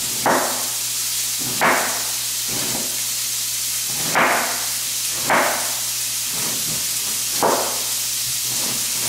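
Chef's knife shredding savoy cabbage on a cutting board, about eight chops roughly a second apart, over the steady hiss of bacon frying in a pan.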